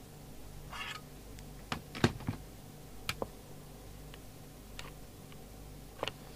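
Scattered clicks and light knocks of tools and equipment being handled on a workbench, the loudest about two seconds in, with a short scrape or hiss just before one second, over a steady low mains hum.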